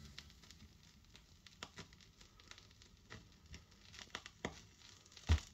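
Turntable stylus riding the run-out groove of a 7-inch 45 rpm vinyl single once the song is over: faint surface crackle and hiss, with a soft pop about every 1.3 seconds, once per turn of the record, the loudest near the end.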